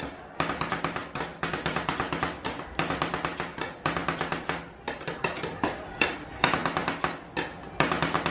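Two metal spatulas chopping rapidly on the steel cold plate of a rolled-ice-cream pan, rhythmic runs of sharp metallic taps, several a second, broken by short pauses, over a steady low hum.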